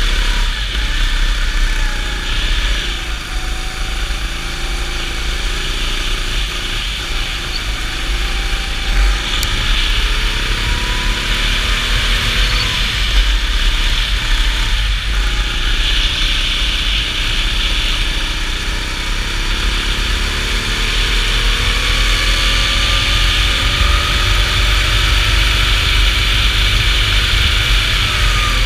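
Go-kart engine, close to the onboard camera, revving up and down through the corners with a dip a few seconds in, then climbing steadily in pitch along the straight near the end. Heavy wind rumble on the microphone runs underneath.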